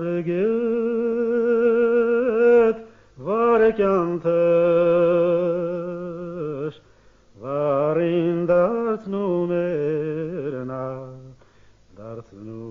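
A man singing an Armenian folk song unaccompanied, with long held notes that waver in a wide vibrato and ornamental turns. Three phrases are split by short breaths, and a fourth begins near the end.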